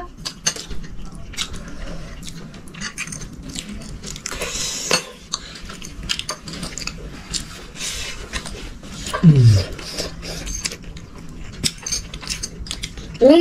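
Cutlery and dishes clinking and scraping at a meal table, scattered irregular clicks throughout. About nine seconds in, a short voice sound falling steeply in pitch stands out as the loudest moment.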